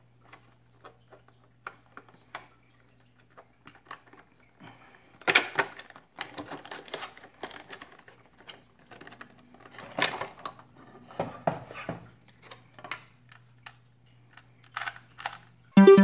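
Clear plastic Rubik's Cube packaging handled and pried open: scattered clicks and crinkling crackles, the loudest bursts about five and ten seconds in, over a faint low hum. Electronic music cuts in right at the end.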